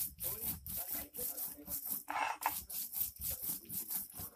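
Stone roller rubbed back and forth over a flat grinding stone (sil-nora), grinding ginger and cumin into a wet paste. Quick, even scraping strokes, about three to four a second.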